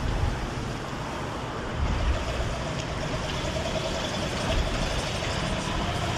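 Street traffic: cars and a lorry driving past with their engines running, a steady rush of road noise, with a faint steady whine through the middle.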